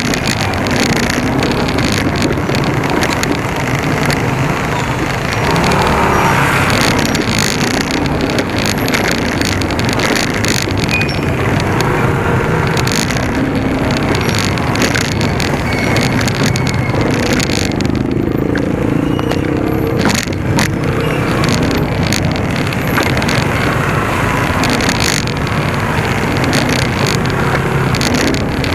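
Motorcycle engine running steadily while riding, with road and wind noise on the microphone.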